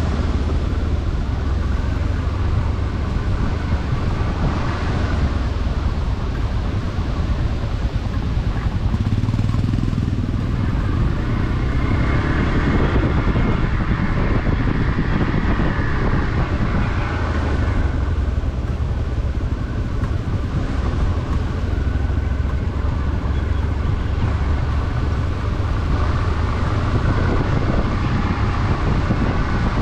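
A motorcycle running steadily at road speed, heard from the rider's own bike, with a heavy low rumble of wind and engine on the microphone.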